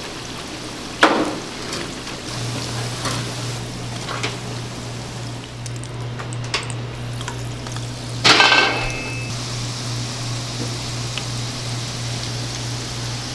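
Battered twigim deep-frying in a fryer of hot oil: a steady sizzle with a low hum beneath it. Metal utensils knock against the fryer twice, a sharp clack about a second in and a louder clatter with a brief ring about eight seconds in.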